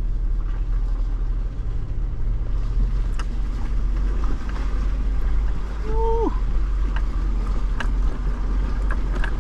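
Jeep Wrangler driving: a steady low rumble of engine and road noise, with a few light clicks and a short squeal about six seconds in.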